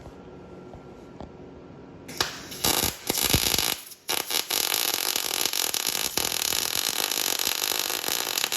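Wire-feed welder arc crackling, starting about two seconds in with a short stop near four seconds, then a long steady run. With the wire feed speed turned up to the settings chart, it sounds way better.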